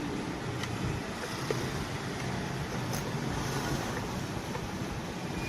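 Electric fan running steadily: a constant rush of moving air with a faint low hum.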